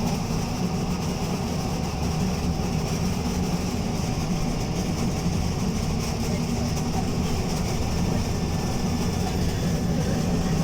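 Alexander Dennis Enviro200 MMC single-deck bus running with a steady, loud, low rumble and no letup.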